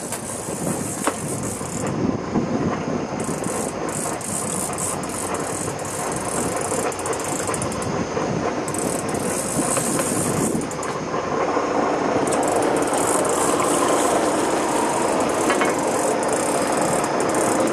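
A fishing boat under way: the engine runs and water rushes along the hull, in one steady mixed noise. A high hiss comes and goes in several stretches over it.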